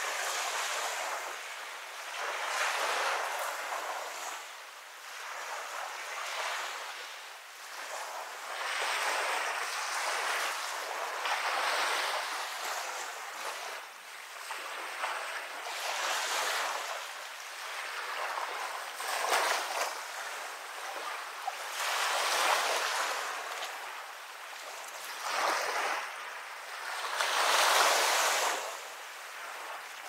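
Waves breaking and washing up a beach, a rushing hiss that swells and fades every few seconds.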